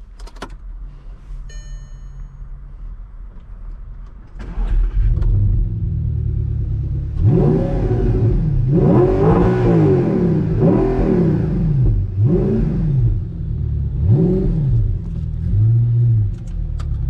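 2009 Audi R8's 4.2-litre V8 engine idling, then revved in a run of about five quick blips, each rising and falling back in pitch, before settling to idle again.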